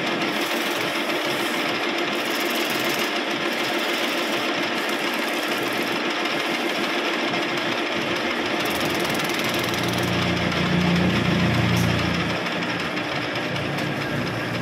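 Metal lathe running steadily, its chuck spinning. A louder low hum swells from about ten to twelve seconds in.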